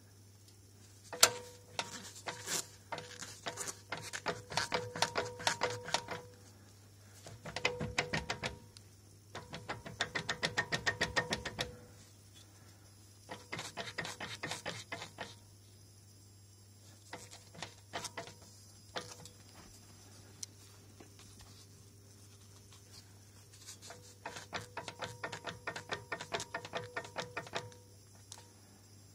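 Knocking from a Mitsubishi Toppo's right front drive shaft: about six runs of rapid clicking, each lasting a few seconds, as the car is moved back and forth in gear. It is the sign of a faulty right drive shaft.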